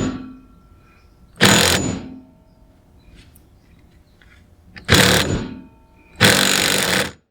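Impact wrench fired in four short bursts, hammering the steering-wheel hub bolt down onto the steering shaft. The last burst is the longest and ends as the bolt stops turning.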